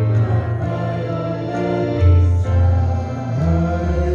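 A choir singing the final stanza of a slow hymn, with long held notes.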